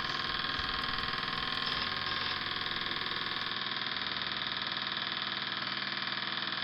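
Mamod TE1A live-steam model traction engine running steadily with a fast, even beat.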